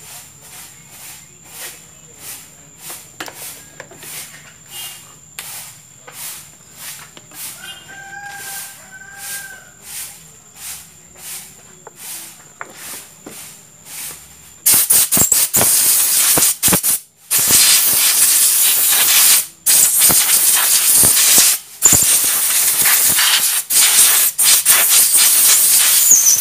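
Compressed-air blow gun blasting air onto a motorcycle's front disc-brake caliper at the bleeder screw, in long loud hissing bursts with a few short breaks. It starts suddenly about halfway through, after a quiet stretch of faint ticking. The air is drying off brake fluid so the bleeder can be checked for seepage.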